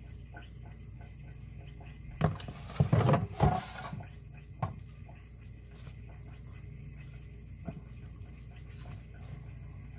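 Sticky, wet bread dough scraped from a mixing bowl with a spatula and dropped into a loaf pan. A cluster of wet plops and knocks comes about two to four seconds in, followed by a couple of lighter knocks.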